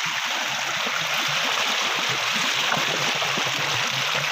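Rainwater runoff rushing along like a small stream: a steady, even sound of flowing water.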